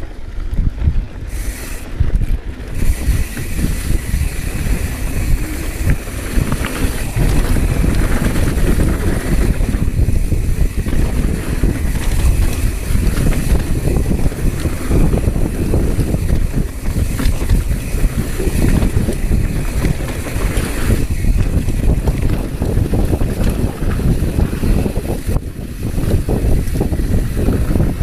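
Wind buffeting the camera microphone over the rumble and jolting of a mountain bike descending a dirt downhill trail at speed.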